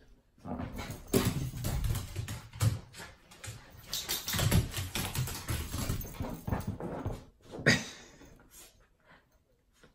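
Two small dogs playing rough: irregular scuffling, thumps and paws scrabbling on a hardwood floor, with a sharp knock late on.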